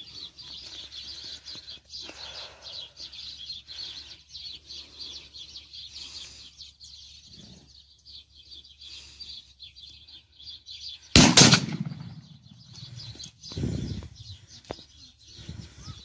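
A flock of rosy starlings chattering, a dense mass of high chirps. About eleven seconds in there is a single loud shotgun shot, the loudest sound, and a duller thump follows about two seconds later.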